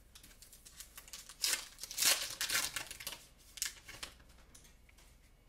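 Foil trading-card pack wrapper being torn open and crinkled by hand, in several crackling bursts, loudest about two seconds in.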